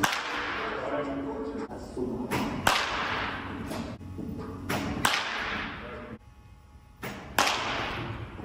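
Baseball bat striking pitched balls, four sharp cracks about every two and a half seconds, each ringing out in the large hall. A softer knock comes a moment before each crack.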